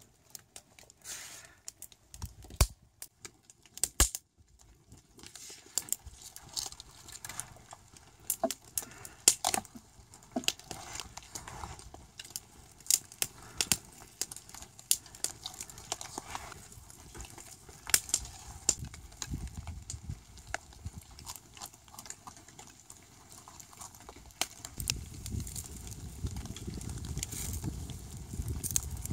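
Wood campfire crackling, with sharp irregular pops and snaps. A low rumble builds in near the end.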